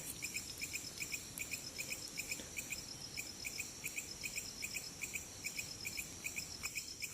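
Crickets chirping at night: a short chirp repeating evenly about three times a second over a steady high-pitched insect trill.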